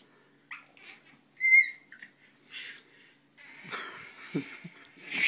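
A baby's excited vocalizing: a brief high-pitched squeal about a second and a half in, among short breathy pants and squeaks. The sounds grow thicker near the end, with a few soft thumps.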